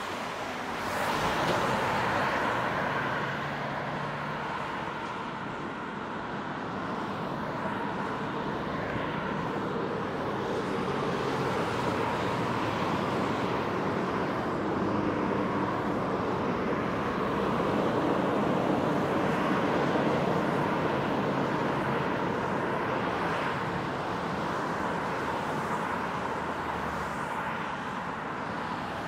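Steady highway traffic on a bridge: cars passing one after another, with tyre and engine noise that swells as each goes by.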